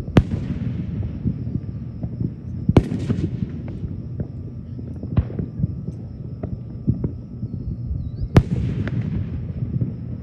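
Aerial fireworks shells bursting: three loud bangs, at the start, a little under three seconds in and about eight seconds in, with a smaller one between. A fading crackling hiss follows the first and last bursts, over a steady low rumble.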